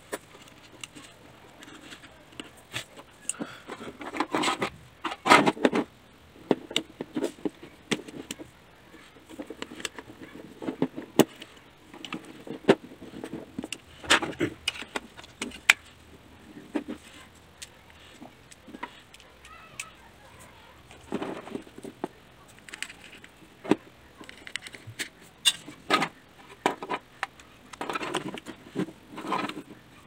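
Hard plastic parts of a toy RC car click, rattle and scrape as they are handled and fitted together. The sharp clicks come irregularly throughout, busiest about four to six seconds in and again near the end.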